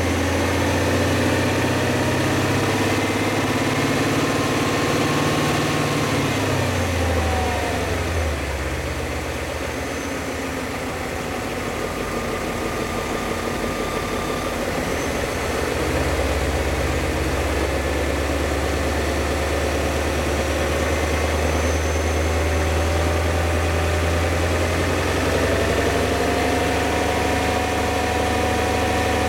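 BMW E39 M5's S62 4.9-litre V8 running, its revs dropping about seven seconds in and climbing slowly again in the second half. The owner reports a sharp knock from this engine on acceleration and at 1500 rpm, which he suspects is worn rod bearings.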